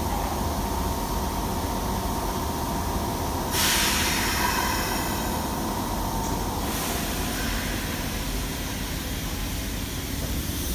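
Electric commuter train at a station platform: a steady low rumble, a hiss lasting about three seconds a third of the way in, and near the end a rising whine as a train's motors start to pull away.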